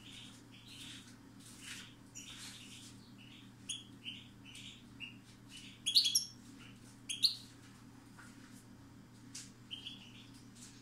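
European goldfinch singing: scattered, twittering short notes, with the loudest quick bursts about six and seven seconds in. A faint steady low hum lies underneath.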